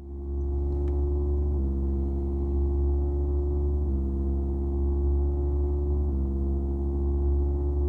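Buchla 208 Music Easel synthesizer holding a steady low drone rich in overtones, its tone shifting slightly in steps about every two seconds.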